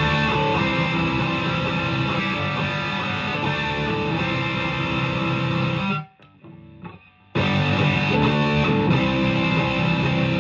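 PRS SE McCarty 594 electric guitar on its full humbuckers, played through an overdriven amp. The playing breaks off for about a second just past halfway, then starts again.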